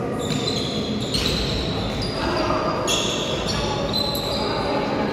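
Gym sounds during a youth basketball game: the ball bouncing, short high sneaker squeaks on the court floor, and the voices of players and spectators in a reverberant hall.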